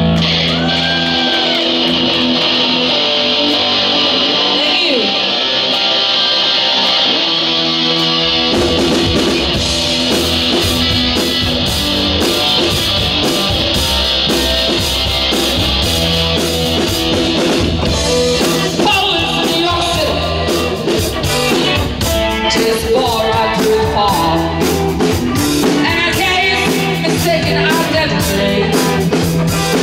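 Live rock band playing: a guitar-led opening, then the drum kit comes in about eight and a half seconds in with electric guitar and bass guitar, and a woman singing in the later part.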